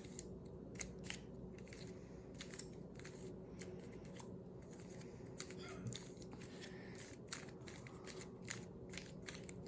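Faint plastic clicks and clacks of a 3x3 mirror cube being turned by hand, a few irregular clicks a second as its layers move.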